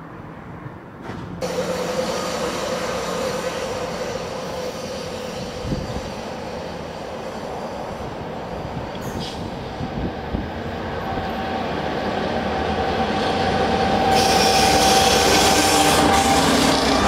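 GBRf Class 66 diesel locomotive approaching and passing close: its two-stroke EMD V12 engine and wheels grow steadily louder. It is loudest in the last few seconds, with a steady high squeal from the wheels on the rails.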